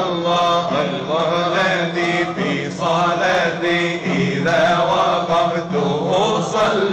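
Sufi hadra dhikr: a lead reciter sings a melodic line through a microphone over a group of men chanting together, with a steady low held tone beneath.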